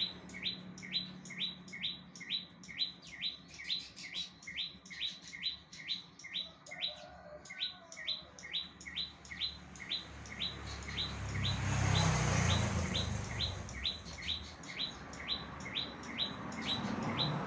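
A prinia singing a fast, even series of short, sharp chirps, about three a second, without pause. A rushing noise swells and fades about ten to fourteen seconds in.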